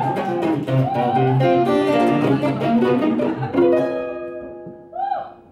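Acoustic guitar played live, quick picked notes and strums for about three seconds, then a chord struck and left to ring out, fading away toward the end.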